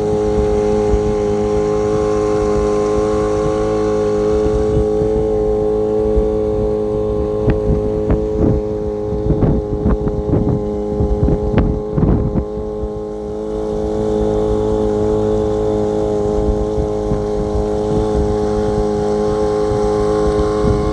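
Boat motor running steadily at full throttle under a heavy load, with no throttle control because the shift/throttle linkage has broken. In the middle, a run of sharp knocks and thumps sounds over the engine.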